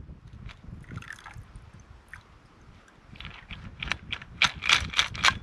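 Cocktail poured from a stainless steel shaker into a stainless steel cup of ice, a faint trickle. From about three seconds in comes a quick run of metallic clinks and ice rattling in the shaker as it is jiggled empty, loudest near the end.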